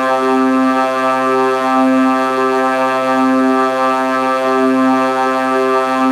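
A steady, low droning tone with many overtones, swelling and easing gently about every second and a half.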